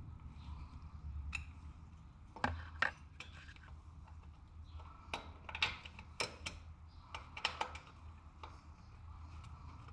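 Metal hand tools clicking and clinking against the motorcycle's metal parts: about a dozen sharp clicks in irregular clusters, over a low steady hum.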